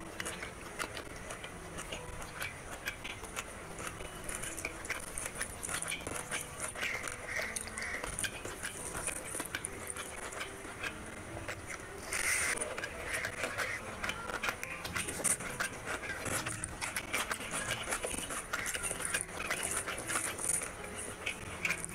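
Fingers mixing wet rice with curry gravy on a plate: soft squelching and squishing, with small clicks of fingers on the plate.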